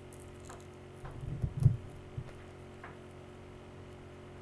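Handling noise as a CD box set is worked open on a table: a short cluster of soft, dull thumps about a second in, then a single tick and a few faint clicks.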